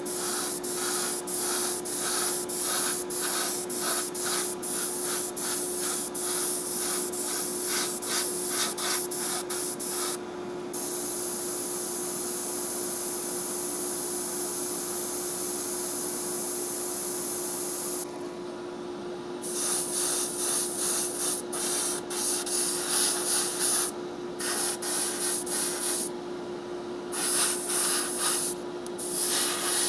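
Airbrush hissing as it sprays paint onto a small diecast body, in many short, quick bursts. There is one long unbroken spray from about eleven to eighteen seconds in. A steady low hum runs underneath.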